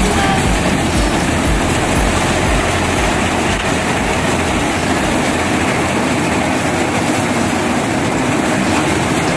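Dasmesh 912 combine harvester running steadily while it cuts and threshes dry paddy. The engine and harvesting machinery make a continuous loud mechanical noise that holds even throughout.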